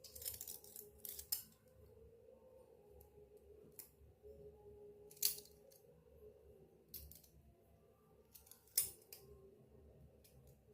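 Small sharp clicks and taps from handling miniature steel toy kitchen pieces: a quick cluster at the start, then scattered single clicks, the loudest about five and nine seconds in, over a faint steady hum.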